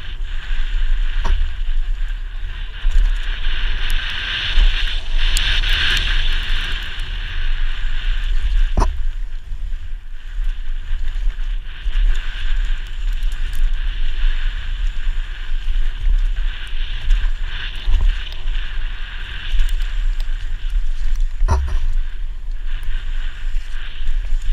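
Wind buffeting a helmet-mounted camera on a downhill mountain bike at speed, with the bike rattling over a dirt trail. Three sharp knocks come from hitting bumps: one near the start, one about a third of the way through, and one near the end.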